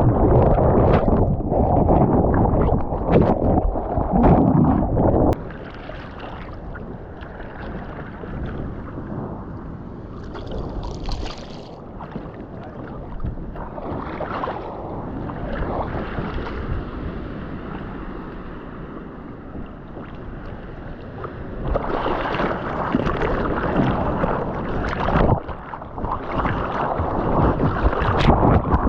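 Ocean water rushing and wind buffeting the microphone of a surfer's waterproof action camera. It is loud for about the first five seconds, drops to a softer wash, then turns loud again for the last several seconds.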